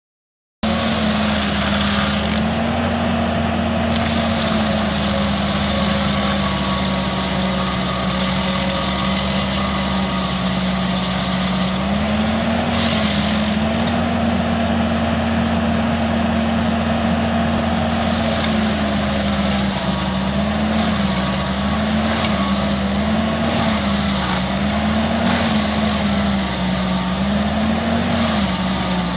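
Rayco RG74T-R tracked stump grinder's diesel engine running steadily under load while its cutter wheel grinds into a tree stump. It starts suddenly just after the beginning, and from about halfway the engine note dips and recovers every second or two as the wheel works through the wood.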